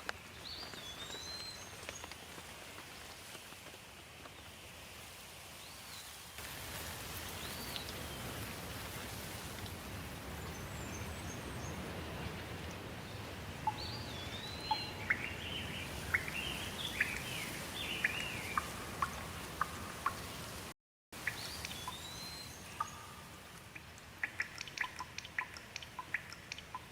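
Steady rain with birds calling over it: short arching chirps recur throughout, and a quick run of falling whistled notes comes in the middle. Sharp drips or ticks come near the end.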